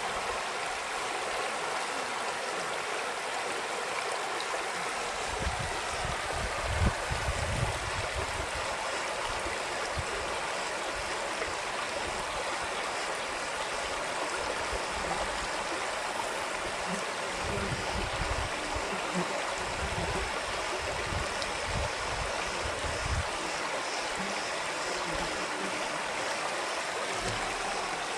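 Creek water flowing: a steady rushing of water, with low rumbles coming and going a few seconds in and again past the middle.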